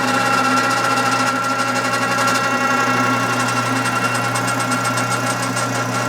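Worthington welding positioner running, its electric motor and mechanical variable-speed drive turning the faceplate with a steady hum and whine. A light rapid ticking joins about halfway through.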